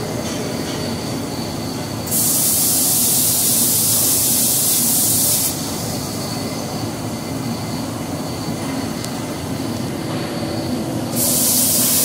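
Glass-bottle paint line running with a steady machine noise, broken by loud bursts of air hiss from the automatic spray guns: one starts about two seconds in and lasts about three and a half seconds, and another starts near the end.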